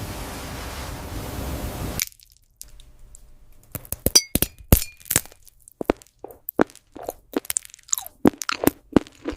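A steady hiss that cuts off about two seconds in, followed by a run of sharp, crisp crunches and cracks at irregular intervals: glass-crackle ASMR crunching of biting into a brittle 'glass' corn dog.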